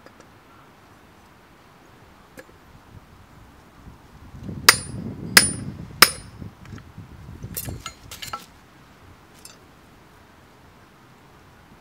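Hammer striking an iron rod on a hammer head used as an anvil in a wooden stump: three sharp, ringing metal blows about two-thirds of a second apart, followed by a few lighter metal clinks.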